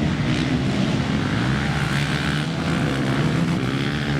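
ATV engines running steadily with a continuous engine hum.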